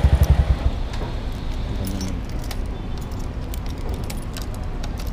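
Motorcycle engine idling with an even low pulse, cut off at the ignition key less than a second in. Keys then jangle and click at the ignition switch.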